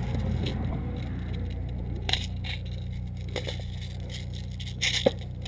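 A few sharp clicks, roughly a second or so apart, over a steady low rumble, typical of scattered airsoft gun shots and BB hits.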